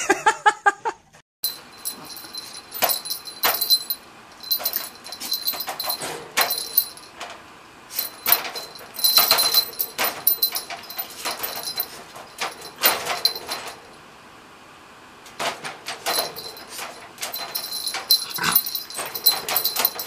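Small dog whimpering and yipping, over clusters of sharp clicks and rattles.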